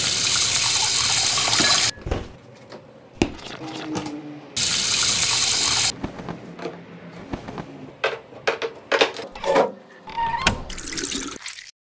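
Tap water running into a stainless steel sink, in two spells of about two seconds and a second and a half, with hands washing under the stream. Between and after come scattered knocks, clicks and clatter.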